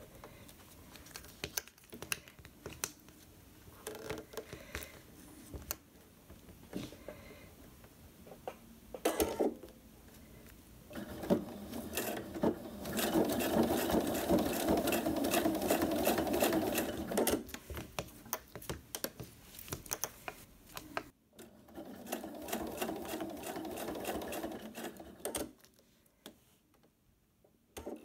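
Pfaff Quilt Expression 4.2 sewing machine stitching along the folded edge of a faux-leather strap. Scattered clicks as the work is positioned come first, then two steady runs of stitching of about four seconds each. The machine starts again right at the end.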